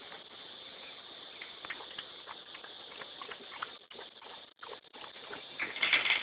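American Bulldog puppies moving about, with light pattering and scattered small clicks, and a louder noisy burst near the end.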